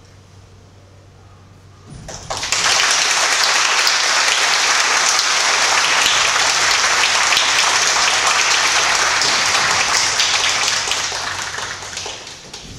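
Audience applauding: a burst of clapping that starts about two seconds in, holds steady, then dies away near the end.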